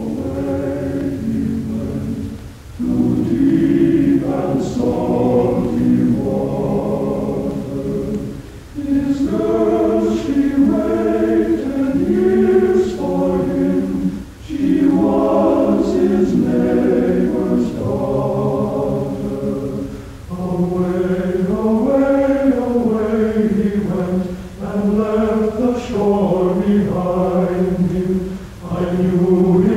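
A choir singing a cappella in slow, sustained phrases a few seconds long, with short breaks between them.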